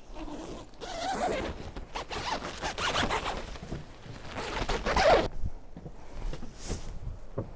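A zipper pulled in several rasping strokes over a few seconds, the last stroke near the middle the loudest.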